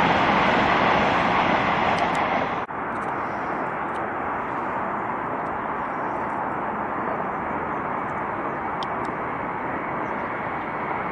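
High-speed train running past on an elevated track, a loud steady rush of wheels and air. About two and a half seconds in it cuts abruptly to a quieter, duller steady rush of a high-speed train running along a more distant viaduct.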